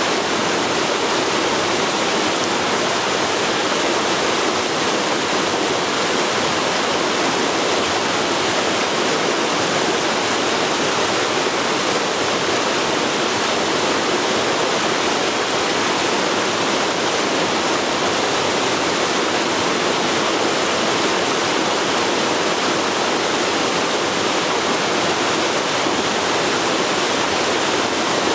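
Forest river flowing, a steady rush of water over rocks with no change throughout.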